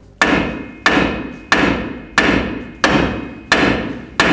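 Hammer blows on a truck's steering knuckle, seven evenly paced strikes about a second and a half apart, each with a short metallic ring. The blows are meant to shock the lower ball joint's tapered stud loose from the knuckle.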